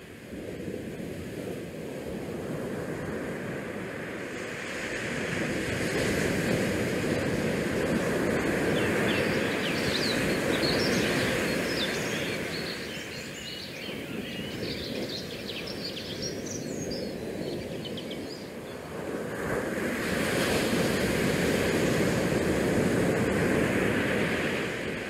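Wind and sea noise on a cruise ship's open deck, with the wind gusting over the microphone and swelling louder twice. A scatter of short high squeaks sounds faintly through the middle.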